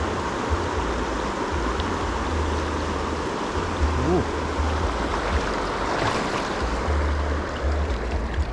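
Shallow mountain river rushing steadily over stones, with uneven low rumbling on the microphone.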